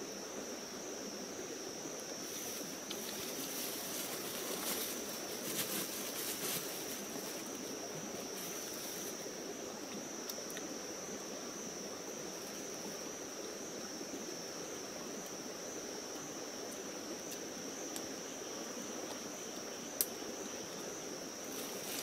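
Insects droning steadily at one high pitch over the even rush of a stream's flowing water. A few soft crackles sound a few seconds in, and a single sharp click comes near the end.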